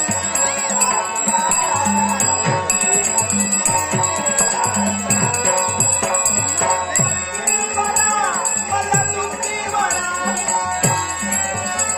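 Dashavatar stage accompaniment: harmonium melody over pakhawaj drum strokes, with jhanj hand cymbals ringing steadily, playing dance music.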